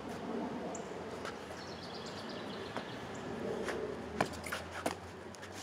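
Two sharp clacks of black synthetic longsword trainers striking each other, about four seconds in and again half a second later, with small bird chirps in the background.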